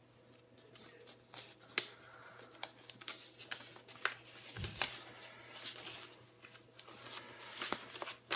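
Sheets of drawing paper rustling and crinkling as they are handled and leafed through, with scattered sharp clicks and a soft thump about halfway through.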